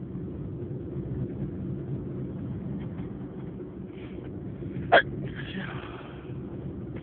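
A single stifled, held-in sneeze about five seconds in: one short, sharp burst followed by a breathy exhale lasting about a second. A steady low rumble runs underneath.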